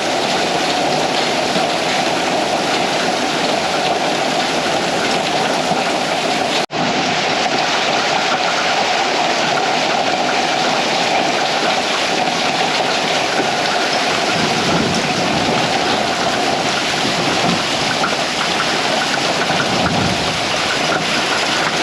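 Heavy thunderstorm rain mixed with small pea-size hail, a steady hiss and patter. The sound cuts out for an instant about seven seconds in.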